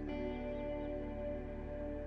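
Ambient background music: soft, sustained chords held steadily.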